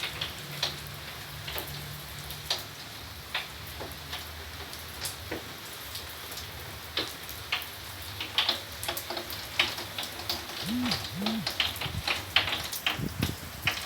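Rain falling, with drops striking nearby surfaces in irregular sharp ticks over a steady hiss. A low steady hum sounds under it for the first few seconds.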